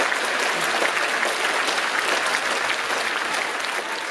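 Concert-hall audience applauding, a dense, even patter of many hands clapping that starts to fade near the end.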